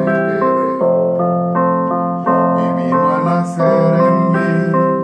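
Electronic keyboard on a piano voice, playing a slow melody over sustained chords that change about once a second.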